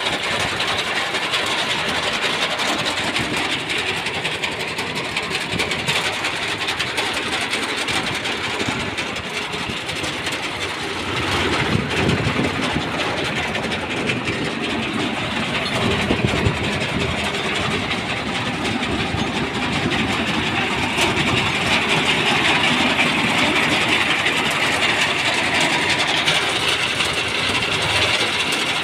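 Swaraj 735 FE tractor's diesel engine running and driving a front-mounted BCS reaper binder, whose cutting and binding mechanism clatters steadily during a test run.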